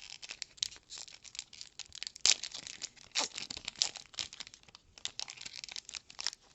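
Trading cards and packaging being handled on a table: a run of short, crisp rustles and clicks, the loudest a little over two seconds in.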